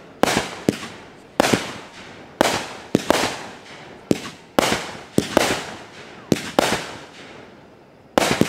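Cutting Edge Fireworks 'Holy Cow' 500-gram consumer cake firing: a string of sharp reports, one or two a second, each fading away quickly. After a pause of about a second and a half, a fresh quick cluster starts near the end.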